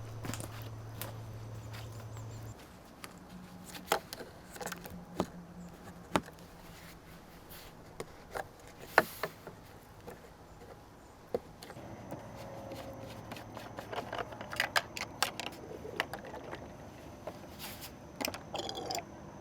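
Scattered sharp clicks, knocks and light scrapes of hard objects being handled, over a faint steady low hum. A short hissing whoosh comes about nine seconds in.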